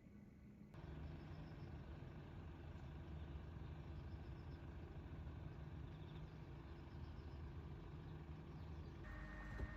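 Steady low rumble of a motor vehicle running, with a faint steady hum over it. The sound changes abruptly about a second in and again near the end.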